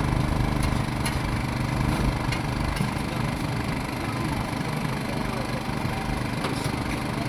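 A motor running steadily with an even low hum, with a few faint clicks over it.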